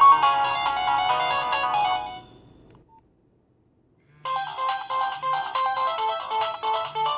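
Nokia 1112 mobile-phone ringtones: one ringtone melody fades out about two and a half seconds in, and after a brief silence a different ringtone melody starts about four seconds in.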